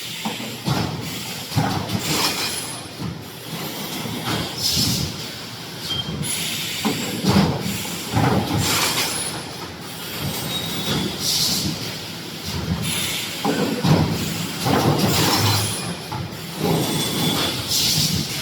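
3D EPS panel wire-mesh welding machine running through its cycle: metallic clanking and squealing, with a hissing air release every few seconds.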